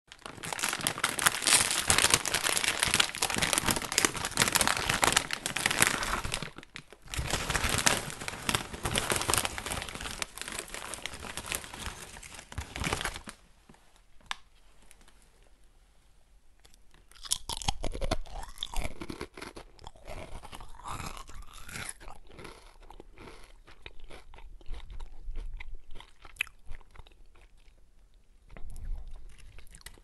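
A person crunching and chewing potato chips close to the microphone. The crunching is loud and dense for the first half, with a short pause partway. It then turns quieter, with sparser crunches and crackles.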